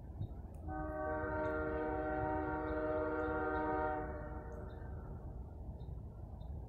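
Horn of a distant, approaching CSX GE ES44AH freight locomotive sounding one long blast of about three seconds, several notes at once in a steady chord, starting about a second in. A low rumble runs underneath.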